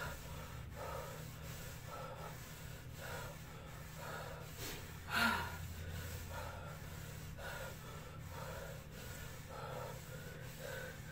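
A woman breathing hard in short, regular breaths, a little under one a second, while doing side lunges, with one louder exhale about five seconds in.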